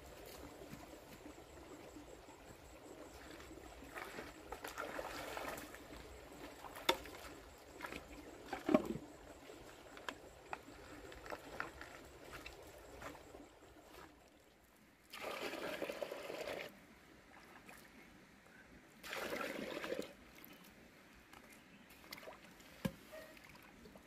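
Water poured and trickling from bowls into a plastic bucket, with small splashes and knocks. Two louder spells of pouring, each about a second and a half, come about fifteen and nineteen seconds in.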